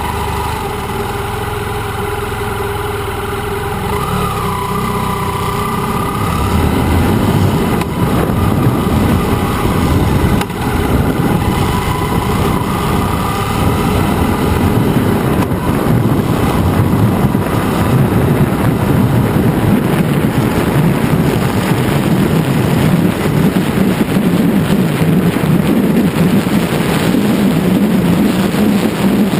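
BMW F800GS motorcycle's parallel-twin engine, heard from a camera mounted on the bike. It runs steadily at low revs, then pulls harder about six seconds in, and a loud rush of wind and road noise builds with speed.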